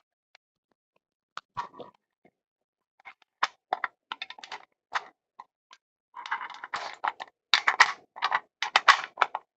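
Brass rifle cartridges being pressed one by one into a rifle magazine: a string of sharp metallic clicks and rattles, sparse at first and coming quickly and more loudly from about six seconds in.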